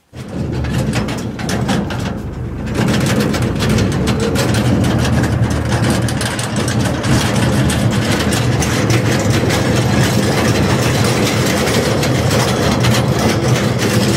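A vehicle engine running steadily close by, growing louder about three seconds in and then holding an even pitch.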